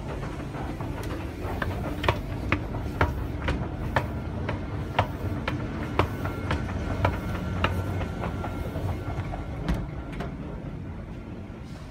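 Escalator running: a steady low rumble with a regular click about twice a second, as the steps pass, which fades out near the end.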